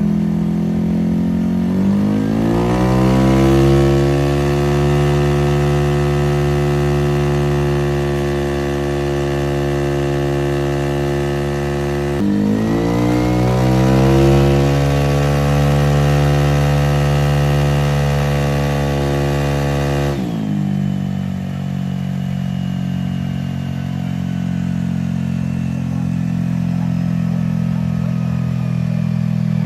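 Fuel-injected engine running through a ProBld exhaust. It revs up about two seconds in and is held at a steady higher rpm, dips briefly and climbs back near the middle, then drops back to idle for the last third.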